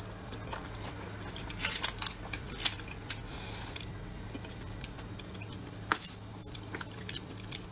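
Close-miked eating sounds: a person chewing braised food, with soft mouth sounds and a few sharp clicks, the loudest about two and six seconds in. A faint steady hum runs underneath.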